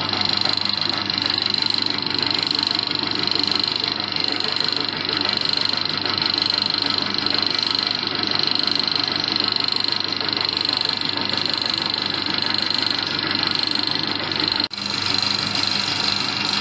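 Mini pellet mill running under its electric motor as feed mash goes into the hopper: a steady mechanical drone with a high whine. There is a momentary break near the end.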